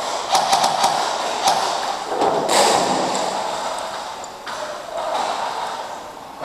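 Airsoft gunfire: scattered sharp clicks and pings of BBs being fired and striking hard surfaces, in irregular bunches, with a louder burst about two and a half seconds in.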